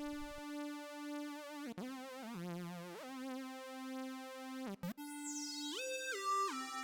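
Sawtooth synth lead voice of a Kurzweil SPS4-8 digital piano playing long held notes, with vibrato on some of them and a slow pulsing in level. About five seconds in it changes to another lead voice playing a short phrase of quick stepwise notes.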